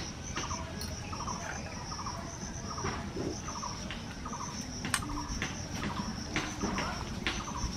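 Crickets trilling on one high, steady note, with soft short clicks underneath.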